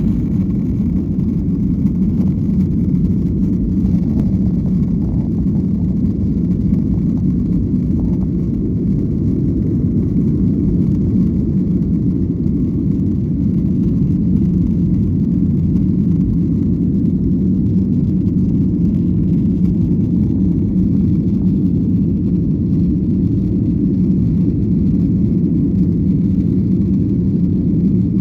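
Jet airliner engine noise, a steady low rumble that holds level without rising or falling.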